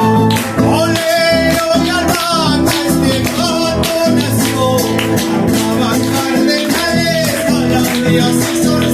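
Live Argentine folk music: strummed acoustic guitars and a steadily beaten bombo drum, with singing over them.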